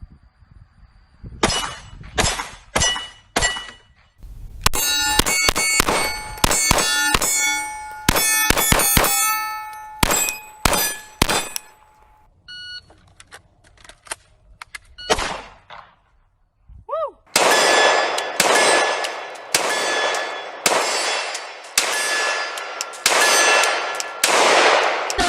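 Pistol fired from a Micro Conversion Kit, with hits on steel targets clanging and ringing. There are a few single shots first, then rapid strings of shots, then a steady series of about one shot a second.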